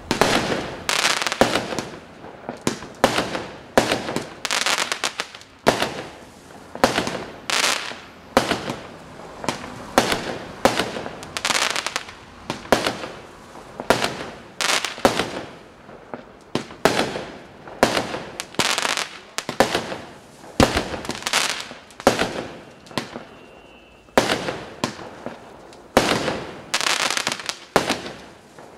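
A 25-shot, 0.8-inch consumer firework cake firing its shots in quick succession: a steady run of sharp bangs, about one a second, with a short lull about three quarters of the way through.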